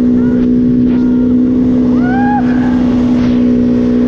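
Suzuki Vinson 500 ATV's single-cylinder engine running loud and steady, holding one pitch as if at constant high revs, with a few brief higher squeals over it.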